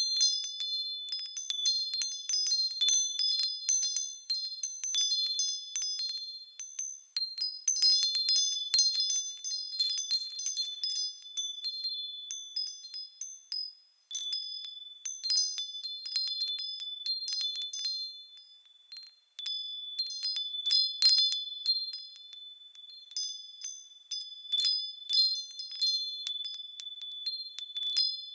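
High-pitched metal chime bells tinkling at random, many clear ringing tones struck and overlapping. The ringing twice dies away almost to nothing, about halfway through and again about two-thirds through, before fresh strikes start it up again.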